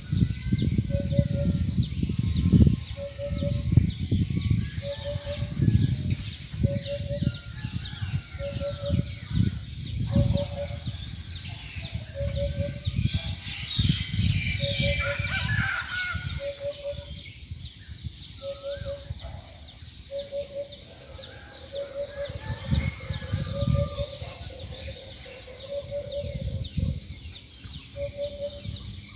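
A bird repeating one short note at a steady pitch about once a second, over uneven low rumbling noise, with a spell of higher chirping about halfway through.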